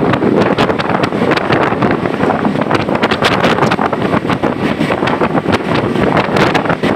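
Vehicle travelling in heavy rain, its road noise under dense, irregular crackling from rain and wind hitting the microphone.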